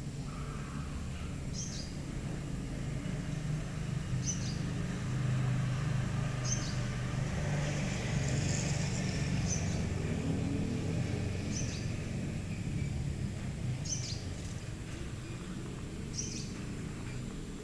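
A small bird giving short high chirps, seven in all, about two seconds apart, over a low steady rumble that swells in the middle.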